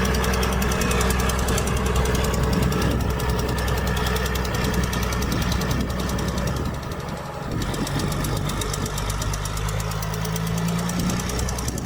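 Heavy diesel engine of earthmoving machinery running under load with a steady knocking clatter; it dips briefly about seven seconds in, then picks up again.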